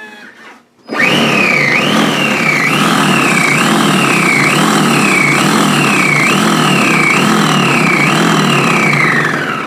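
Moulinex Companion food processor chopping basil in its small mini bowl on pulse: the blade motor starts abruptly about a second in and runs with a loud high whine that rises and sags about once a second. Near the end it stops and winds down, the whine falling in pitch.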